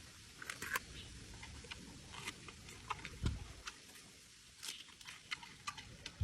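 Giant panda chewing its food: faint, scattered clicks and crunches, irregular throughout.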